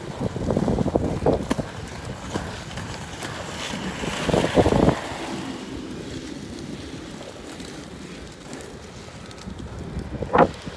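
Wind buffeting a phone's microphone as the skater rolls fast on inline skates over asphalt. There is a steady rushing rumble with stronger gusts about a second in and again around four seconds in.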